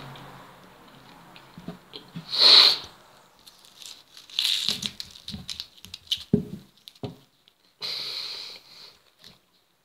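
A person biting into and chewing a raw onion: crunching, crackling bites and wet mouth noises, with a few louder hissing bursts, the loudest about two and a half seconds in.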